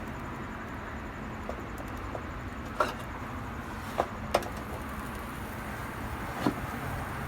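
Chicken grilling over an open fire under a closed grill: a steady low rumble with a few sharp pops and crackles.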